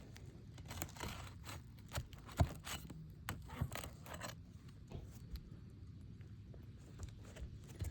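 Scattered scrapes, crunches and clicks from work on an asphalt shingle roof, irregular and mostly faint, with a few sharper knocks in the first half.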